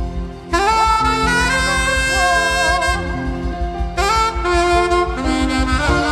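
Gospel instrumental music: a gliding lead melody with vibrato comes in about half a second in over sustained keyboard-like chords and a steady bass pulse.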